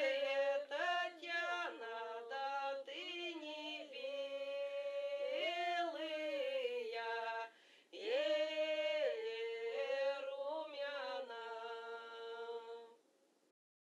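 A woman singing unaccompanied: a slow melody with long held and gliding notes, in two phrases with a short break between them, fading out about half a second before the end.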